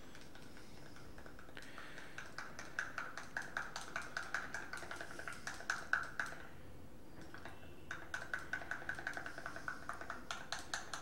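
A spoon stirring protein powder into liquid in a drinking glass, clinking against the glass several times a second so the glass rings. The clinking starts about two seconds in, stops briefly around seven seconds, then picks up again.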